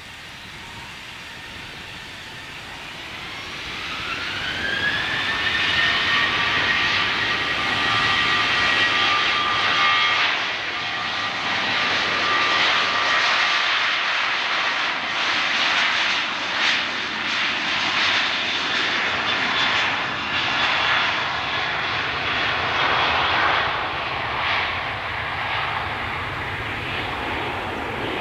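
Ryanair Boeing 737-800's CFM56-7B turbofan engines spooling up to takeoff thrust, a whine rising steeply about three seconds in. The jet then runs loud and steady as it accelerates down the runway on its takeoff roll.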